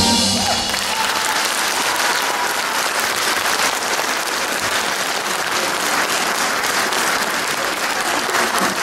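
Audience applauding steadily as a sung number ends, a dense even crackle of many hands clapping.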